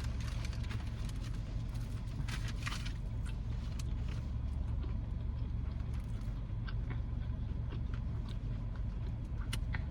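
Close-up chewing of a Philly cheesesteak sub, with scattered mouth clicks and smacks, over the steady low hum of a car's running engine.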